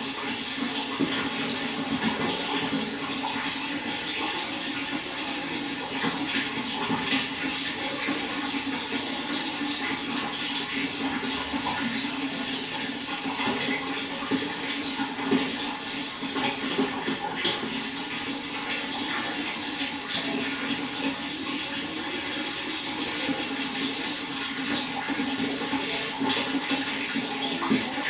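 Running water splashing steadily, with a constant rush and many small irregular splashes.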